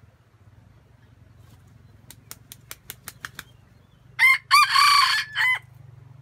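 A red junglefowl rooster beats its wings in a quick run of about seven sharp claps, then gives one short crow of about a second and a half, broken into a few parts.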